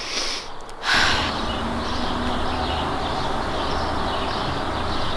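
A short sniff of breath in near the start; then, about a second in, steady outdoor background noise sets in suddenly, with birds chirping faintly through it.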